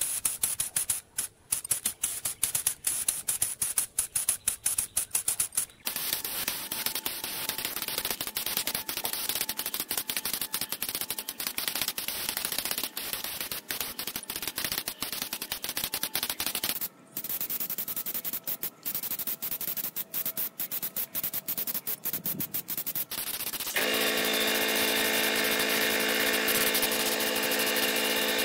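Compressed-air paint spray gun hissing, at first in rapid short spurts, then in long steady passes. Near the end a steady hum with several even tones joins the hiss.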